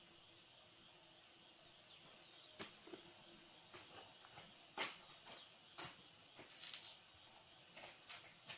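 Faint, steady high-pitched drone of crickets or other insects, with a dozen or so light clicks and taps scattered through it; the loudest tap comes about five seconds in.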